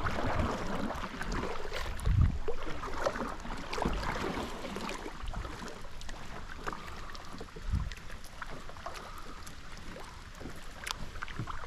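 Water and wind noise around a fishing kayak, with scattered small knocks and clicks and a few low thumps.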